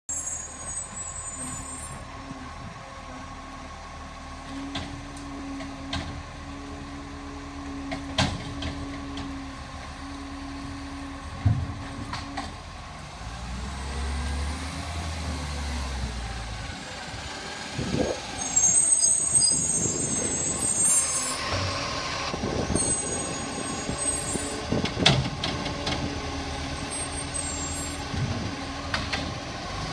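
Side-loading garbage truck collecting wheelie bins: its diesel engine idles and revs, with several sharp knocks and clanks from the bin arm. Hisses of air-brake release come in the second half.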